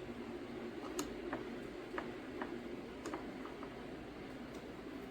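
Scattered light clicks and taps, about seven in all at uneven intervals, from small parts and tools being handled during chainsaw reassembly, over a steady low room hum.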